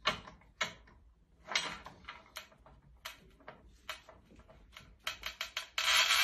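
Manual rail tile cutter being worked on a ceramic tile: a run of sharp clicks and knocks from the cutter's carriage and handle, coming quicker near the end. A louder continuous noise sets in just before the end.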